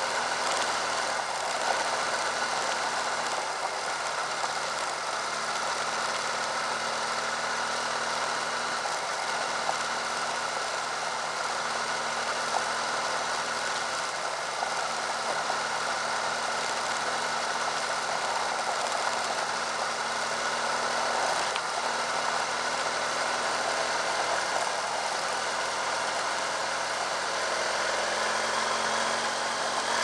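BMW F800GS parallel-twin engine running at a steady cruising speed, mixed with a constant rush of tyres on loose gravel and wind.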